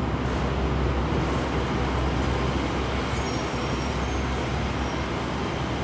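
Steady low rumble and hiss of an R68 subway train running on an elevated steel structure some way off, with a few faint high wheel squeals about halfway through.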